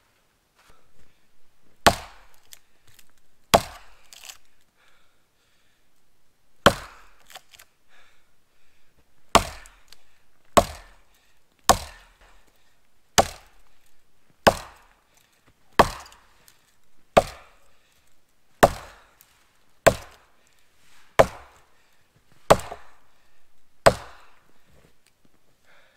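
An axe chopping wood: about fifteen sharp blows, a few seconds apart at first, then settling into a steady rhythm of roughly one blow every second and a bit.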